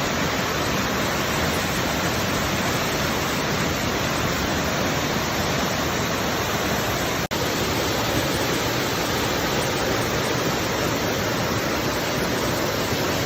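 Moss Glen Falls waterfall rushing steadily, with a momentary break a little past halfway.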